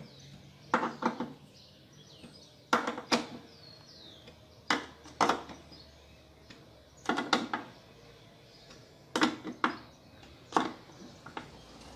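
An 8 mm wrench clicking and knocking against screw heads and the metal housing as the washing machine's transmission screws are retightened, in short clusters of two or three sharp clicks about every two seconds.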